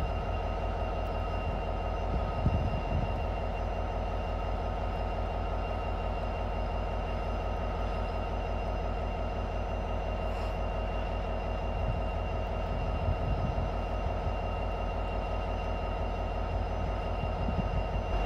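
Vossloh Euro 4000 diesel locomotive standing with its EMD 16-710 two-stroke V16 engine idling steadily, a constant droning hum. A couple of brief knocks come through, about two seconds in and again near the middle.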